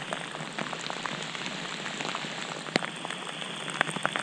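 Steady hiss with scattered light ticks and taps, an irregular rain-like patter, with a sharper tick a little before three seconds in.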